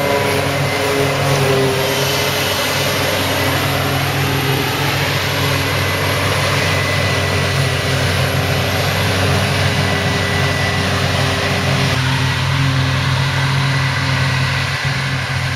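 Heavy diesel farm machinery running steadily during silage harvesting: a constant engine drone with a thin high whine above it.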